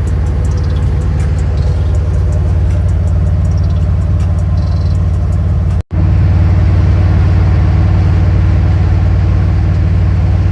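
A 1986 Chevrolet Blazer's engine running steadily with a low rumble, with a sudden short dropout a little past halfway.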